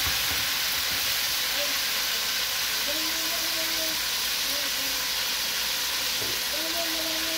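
Hot oil sizzling steadily in a large aluminium pot as food fries, stirred now and then with a wooden spatula.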